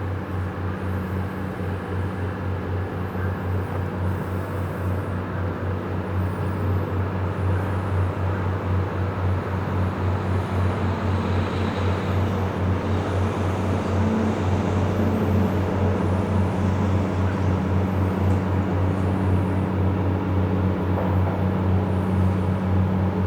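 Tugboat diesel engine running steadily with a deep, fast, even throb, slowly growing a little louder.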